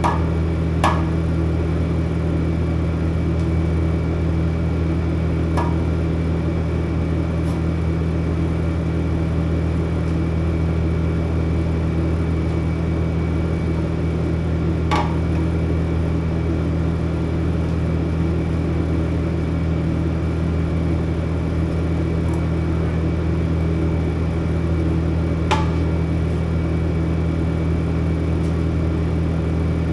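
A steady low mechanical hum that does not change, with four faint single clicks.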